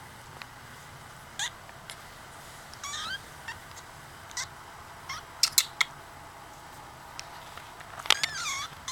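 A very young kitten mewing twice in a high voice: a short rising mew about three seconds in and a longer mew that rises and falls near the end. Several sharp clicks and taps come in between, the loudest about halfway through.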